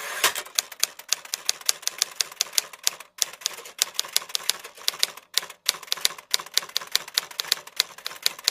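Typewriter keys clacking in a quick run, about five or six keystrokes a second, with two brief pauses: a typing sound effect laid under text being typed on screen.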